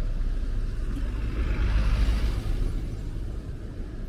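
Street traffic: a steady low rumble, with a passing vehicle swelling and fading about two seconds in.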